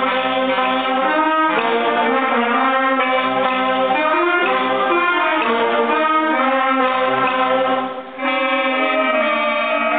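Student concert band playing, with alto saxophones and clarinets carrying sustained chords. The band breaks off for a moment about eight seconds in, then comes back in.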